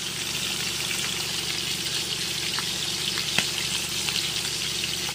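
Meat frying in hot oil in a pan: a steady sizzle with a few crackling pops, the sharpest about three and a half seconds in.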